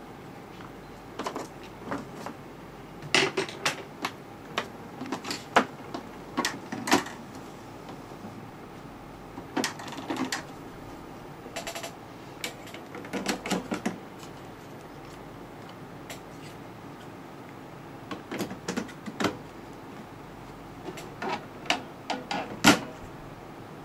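Sharp plastic clicks, snaps and knocks in scattered clusters as an HP Officejet Pro 8100's printhead is handled and seated in the carriage and its ink cartridges are pressed into place.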